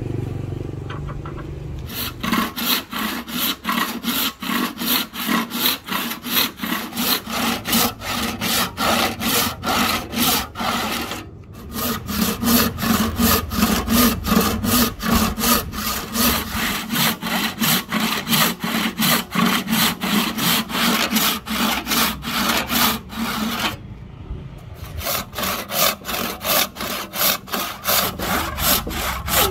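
Hand saw cutting through a hardwood block of old ebony in quick, regular back-and-forth strokes, about three a second, with two short pauses.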